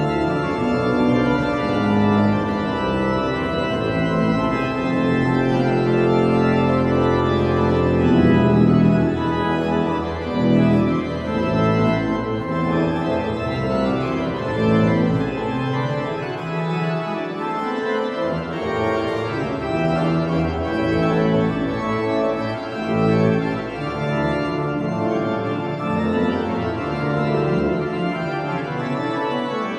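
Organ music playing, with held chords that change every second or so.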